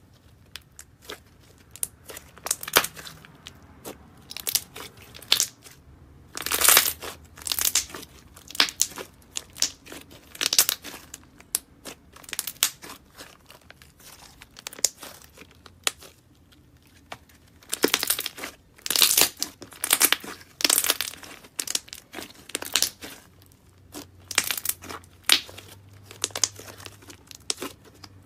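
Thick, glossy white slime being stretched, folded and squeezed by hand, giving irregular popping and crackling clicks, some bunched in quick runs with short lulls between.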